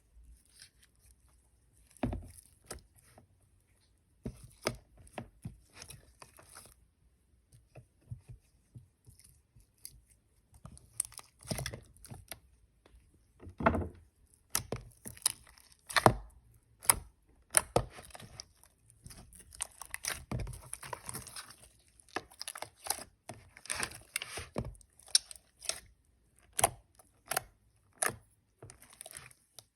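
Slime being stretched and squeezed by hand, giving off irregular crackles, pops and tearing sounds.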